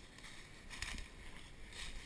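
Footsteps crunching and swishing through dry leaf litter and low brush, two steps about a second apart.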